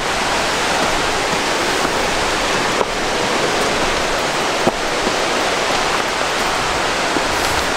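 Steady rush of nearby flowing water, an even hiss across the range, with a couple of faint knocks of footsteps on timber trail steps.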